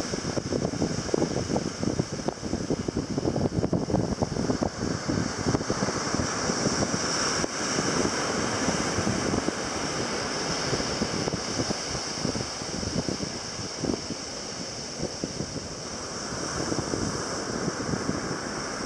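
Surf breaking and washing up the shore, with wind buffeting the microphone.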